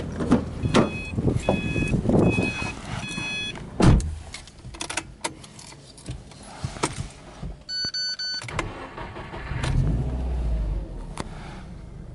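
Getting into a Subaru Impreza S-GT: door and seat knocks, a car door thumping shut about four seconds in, and the dashboard chime beeping in short groups. About ten seconds in, the starter cranks and the turbocharged 2.0-litre boxer four catches, rising in level and then settling toward idle.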